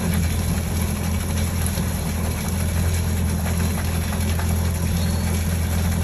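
Yamaha WaveRunner jet ski engine idling steadily on its trailer with a garden hose connected to its flush port: a fresh-water flush of the engine's cooling system after riding, with water pouring out of the hull.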